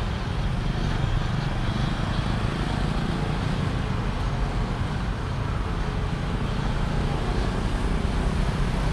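Steady low rumble with a hiss over it: outdoor background noise, with no distinct event standing out.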